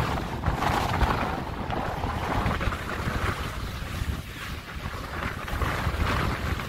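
Wind buffeting the microphone over the rush and splash of water around a sailboat under way, rising and falling in gusts.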